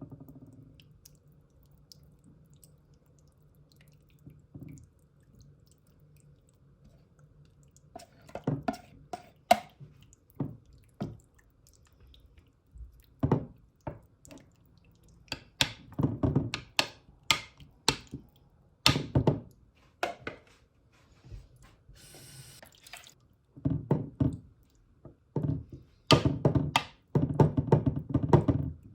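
Kitchen work: a faint low hum, then from about eight seconds in, irregular knocks, clinks and clatter of utensils and dishes being handled, with a brief hiss about two-thirds of the way through.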